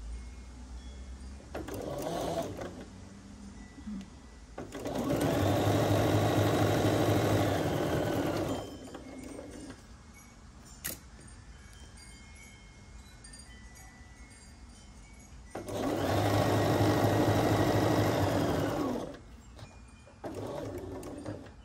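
Bernina B 770 sewing machine stitching a pinned quilt-block seam in two runs of about four seconds each, stopping in between, with two brief shorter runs near the start and the end.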